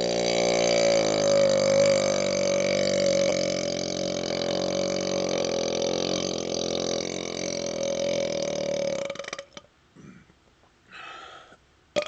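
One very long, steady-pitched burp from a man who has chugged Pepsi, forced up on command and held for about nine seconds before it stops abruptly. A few faint breaths follow, then a brief click near the end.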